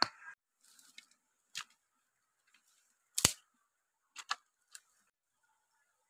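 A handful of sharp, irregular wooden clicks and knocks, the loudest about three seconds in, with two close together a little after four seconds.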